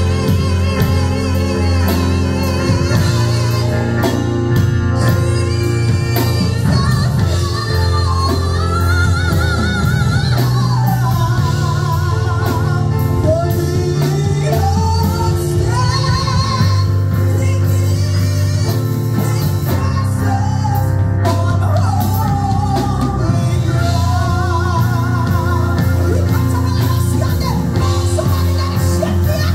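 A woman singing a worship song through a handheld microphone, her melody wavering with vibrato, over an instrumental accompaniment with a steady bass line.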